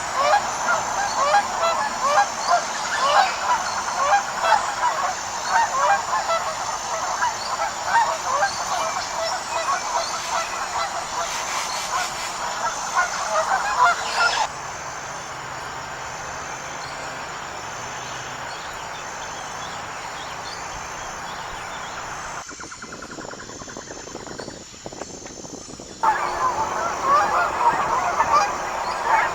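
Flock of wild geese honking, many short nasal calls overlapping. About halfway through the calling stops abruptly, giving way to a quieter steady hiss. Near the end the honking starts again just as abruptly.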